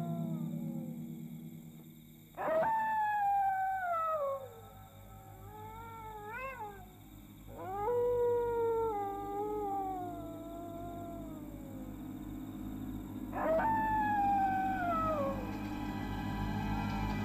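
A dog howling three times, each a long call that jumps up and then falls slowly away, over a low steady hum.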